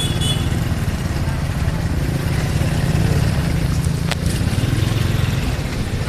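Motorcycle engine running steadily at low speed, a close, even rumble. A short sharp click comes about four seconds in.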